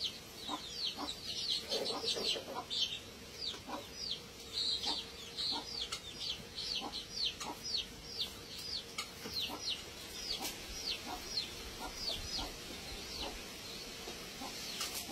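A bird chirping over and over, each call a short, high note sliding downward, about two to three a second, dying out near the end.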